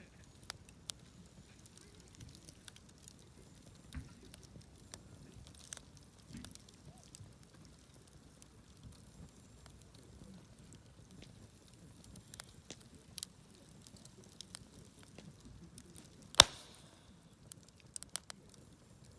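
Campfire crackling: scattered small pops and ticks of burning wood, with one much louder snap late on.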